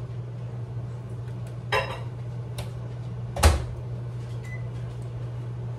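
A dish clatters as it is set into a microwave oven, then the microwave door is shut with a sharp clunk, the loudest sound, and a single short keypad beep follows. A steady low hum runs underneath.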